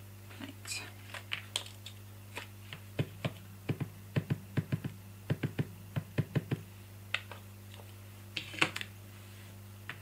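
Ink pad dabbed repeatedly onto a clear rubber stamp mounted on an acrylic block: a run of quick light taps, about four a second, lasting a few seconds. Softer clicks and handling sounds come before the taps, and a louder click comes near the end.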